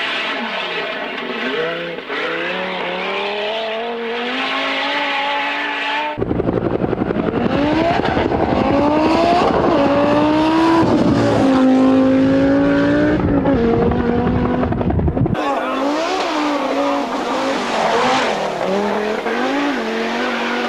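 Audi quattro rally car's turbocharged five-cylinder engine revving hard on a rally stage, the pitch climbing and dropping again and again through the gears. The sound changes abruptly twice, about six and fifteen seconds in, as it cuts between different passes.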